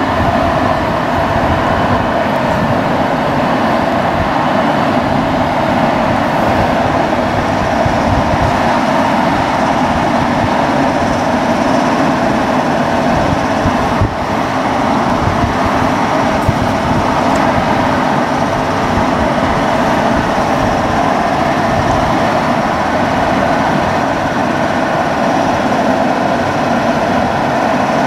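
DB class 114 electric locomotive standing at the head of a double-deck regional train, its cooling blowers running with a loud, steady rush. The sound dips briefly about halfway through.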